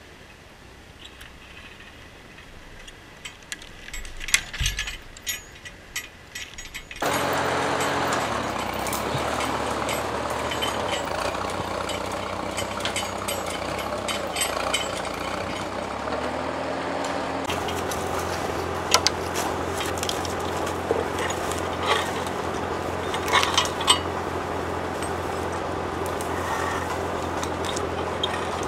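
A few scattered metallic clicks and knocks. Then, about seven seconds in, an ATV engine comes in and runs steadily, with a brief change in its pitch about halfway through and occasional sharp clicks over it.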